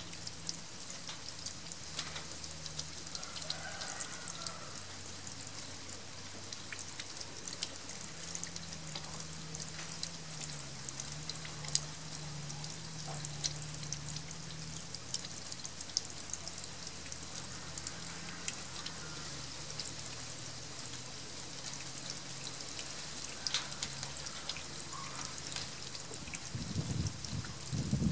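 Tap water pouring steadily over a small turtle held in cupped hands and splashing onto wet floor tiles, a continuous splashing patter. A brief low rumble near the end.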